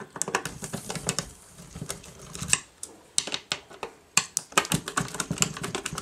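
Rapid, irregular light clicks and rattles of a screwdriver and small screws working on the metal bottom plate of a Siemens X-ray controller, with a short lull around the middle.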